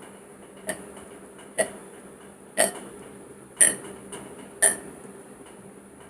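A woman making forced hiccups: five short, sharp hics, evenly spaced about a second apart.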